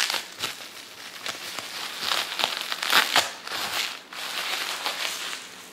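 Packaging being handled and opened: irregular crinkling and rustling with short crackles, busiest between about two and three and a half seconds in, then dying away near the end.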